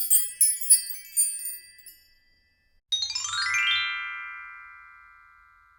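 Short chiming music jingle: high tinkling notes for about two seconds, then, about three seconds in, a quick rising run of bell-like notes that rings on and fades away.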